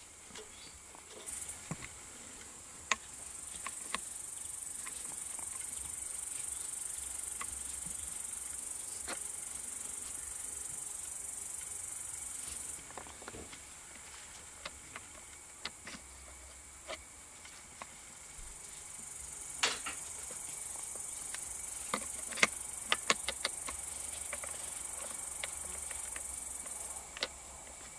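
Insects, cricket-like, chirring steadily and high-pitched; the chirring starts about a second in, drops out about halfway, and returns for most of the last third. Over it come scattered sharp clicks and knocks of metal parts and tools being handled, loudest in a cluster in the last third.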